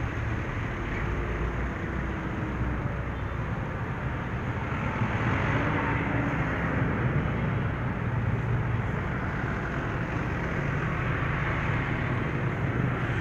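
Busy road traffic: motorcycles and other vehicles running past close by, a steady din of engines that swells a little about five seconds in.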